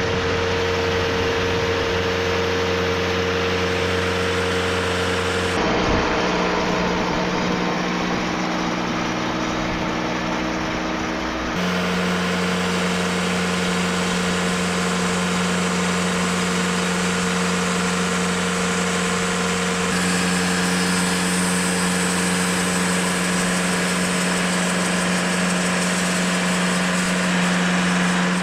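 TimberKing 2520 portable sawmill's engine running steadily, its note changing abruptly about six seconds in, again near twelve seconds, and slightly around twenty seconds.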